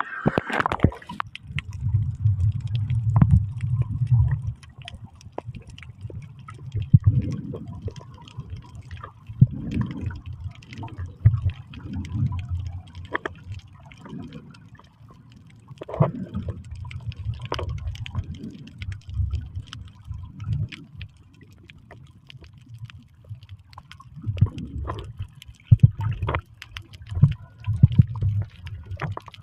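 Water sloshing and gurgling in uneven low surges, with many scattered small clicks.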